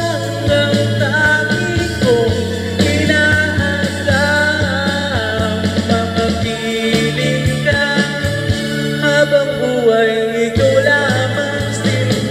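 A man singing a melody into a microphone over a backing track with a steady bass line.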